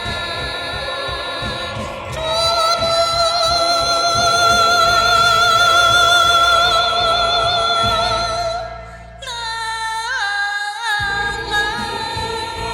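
Female voice singing a Tibetan-style Chinese ballad over a backing track, holding one long high note with vibrato, then breaking off about nine seconds in and starting a new phrase. It is recorded through a cheap headset microphone, which gives the high notes a slightly electronic, auto-tune-like edge.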